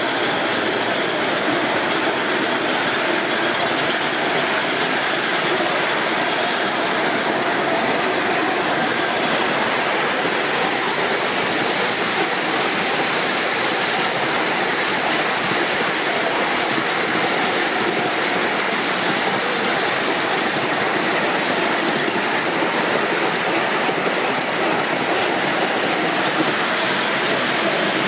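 Miniature railway train running steadily along its track, with the continuous rumble and clatter of the small wheels on the rails as heard riding on the passenger car.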